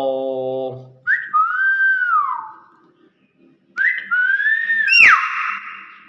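Nias hill myna giving two loud whistles: the first, about a second in, rises, holds and slides down; the second rises and holds, then sweeps sharply upward into a harsh screech that fades away.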